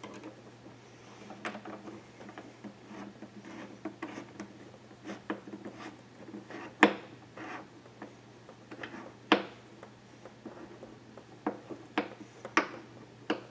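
Clamps and a wire cable hook being fitted onto a backpack blower's flexible elbow tube by hand: rubbing and handling noises with scattered sharp clicks and knocks, the loudest about seven and nine seconds in and a few more near the end.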